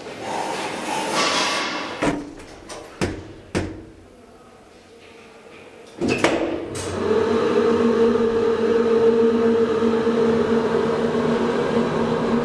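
Hydraulic elevator: a few clicks and knocks from the doors and controls, a louder knock about halfway through as the doors shut, then the hydraulic drive starts with a steady two-tone hum as the car travels.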